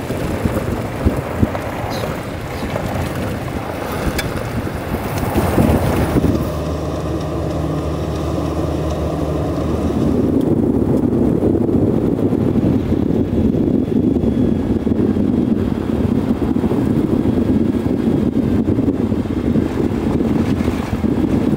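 Car driving fast on an unpaved dirt track: a steady low engine hum with road rumble, turning into a heavy, steady rush of wind on the microphone from about ten seconds in, when the camera is held out of the side window.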